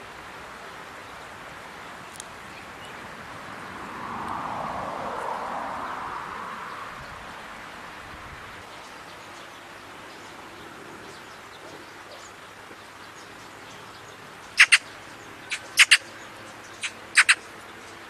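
A magpie giving a few short, harsh chattering calls, about five in a quick broken run near the end, over a steady outdoor hiss. A soft rushing sound swells and fades a few seconds in.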